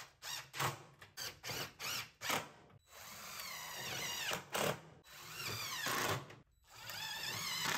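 Cordless DeWalt driver running in bursts as it drives hex-head roofing screws through corrugated metal roofing into the wooden lid beneath. It starts with a quick string of short bursts, then gives three longer runs whose pitch shifts as each screw goes in.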